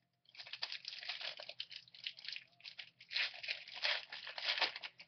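Foil wrapper of a football trading-card pack being torn open and crinkled: a dense, irregular crackle that swells and fades, loudest near the end.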